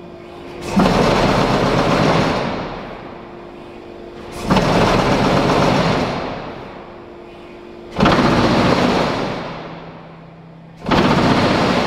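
Earthquake shake-table test rig running, with a stone veneer wall clamped in its steel frame: four bursts of loud rattling clatter, each starting suddenly and dying away over about two seconds, about every three and a half seconds. A faint steady hum runs between the bursts.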